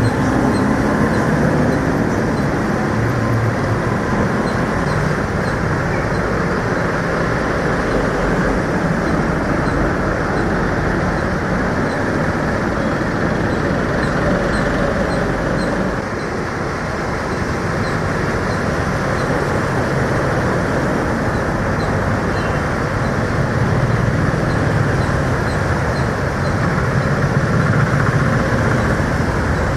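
Road traffic driving through deep floodwater: motorcycle, car and bus engines running over a steady wash of water noise, the low rumble swelling and fading as vehicles pass.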